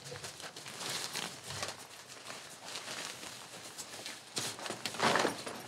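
Nylon tent fabric rustling as a tent pole is fed through its sleeve, with scattered light clicks and scrapes. There is a louder rustle about five seconds in.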